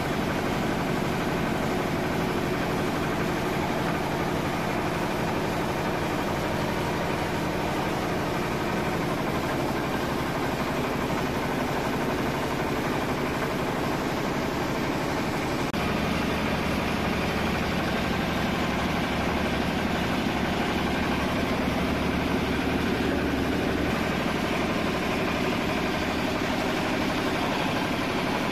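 A 12 HP water-cooled single-cylinder diesel engine running steadily under load, driving a No. 8 rice huller through a flat belt, with the engine's firing pulses and the huller's running mixed together. The sound shifts slightly and grows a little louder a bit past halfway.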